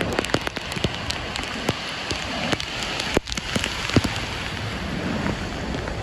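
Ocean surf breaking and washing up the beach: a steady rush of white water, with many sharp ticks and pops over it.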